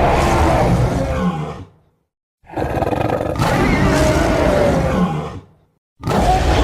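Night Fury dragon roar sound effects played one after another with dead silence between them: a roar fading out about two seconds in, a second roar of about three seconds, and a third starting near the end.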